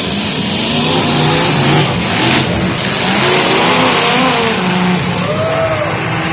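Several demolition-derby cars' engines revving at once, their pitches rising and falling as they accelerate, with a short burst of noise about two seconds in.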